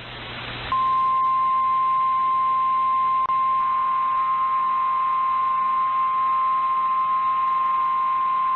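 A brief hiss of static, then the NOAA Weather Radio warning alarm: one loud, steady, high single tone held for about eight seconds, with fainter tones joining above it a few seconds in. It signals that a National Weather Service warning, here a severe thunderstorm warning, follows.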